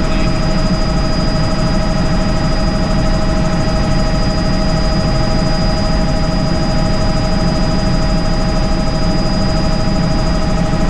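Helicopter in flight heard from inside the cabin: a steady heavy rumble and rush of rotor and engine with a constant high whine over it.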